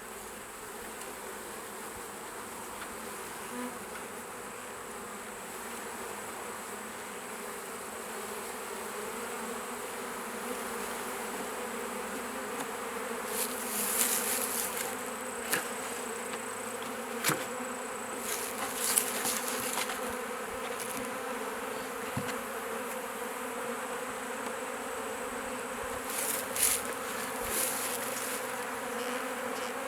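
A colony of honeybees buzzing steadily in an opened hive, the hum slowly growing a little louder. A few brief hissy rustles and sharp clicks come around the middle and again near the end.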